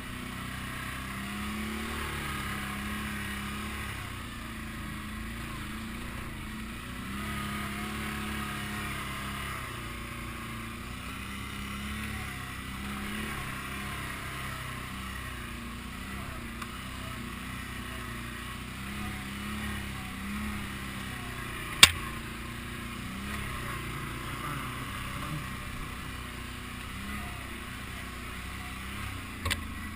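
ATV engine running under changing throttle, its pitch rising and falling. A single sharp knock comes about two-thirds of the way through.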